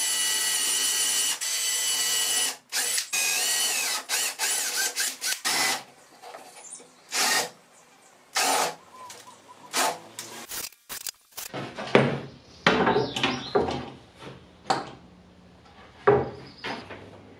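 Cordless drill-driver driving screws into a softwood block: a continuous motor whine for about two and a half seconds, then a string of short trigger bursts as more screws are run in and seated. From about halfway through, a series of short knocks and clatter as the wooden block and aluminium guide rail are handled on the workbench.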